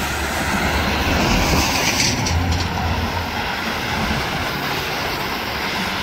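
Freeway traffic on wet pavement: a steady wash of tyre hiss and engine rumble from many passing cars, with one vehicle swishing past louder about two seconds in.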